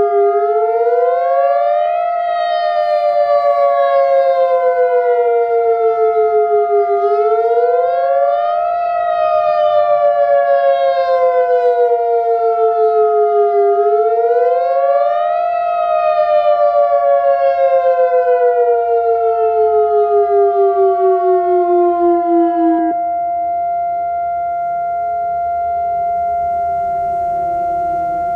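Tornado warning siren wailing, a tone that rises quickly and then falls slowly, repeating about every seven seconds over a steady high tone. About 23 seconds in the wail cuts out sharply, leaving the steady tone and a fainter falling glide.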